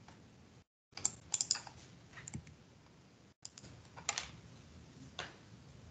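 Faint, scattered clicks and taps of a computer keyboard and mouse, a quick cluster about a second in and a few more spread out after, with two brief dropouts to dead silence.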